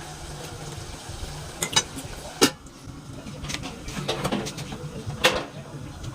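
Metal spoon stirring and scraping in a cooking pot, with a few sharp clinks against the pot, the loudest about two and a half seconds in and again about five seconds in.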